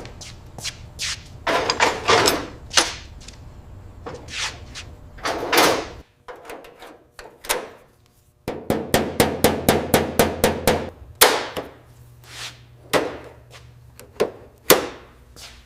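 Workshop tool sounds: a string of sharp metal clicks and knocks, with a quick even run of ticks about halfway through, over a low hum that drops out for a couple of seconds.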